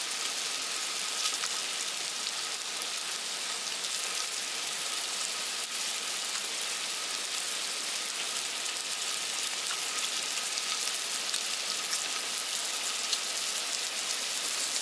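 Chicken skewers and chicken skin sizzling on a small tabletop grill: a steady crackling hiss flecked with small ticks.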